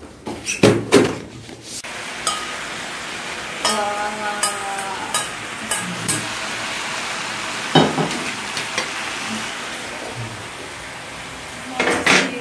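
A pan of red-sauced food sizzling on a portable gas burner while a steel ladle stirs it, with occasional clinks of the ladle and dishes. A few knocks about a second in, as things are set down.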